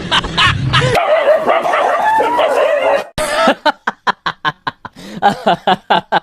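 A dog whining in a wavering pitch, then barking in a quick run of short yips, about four a second.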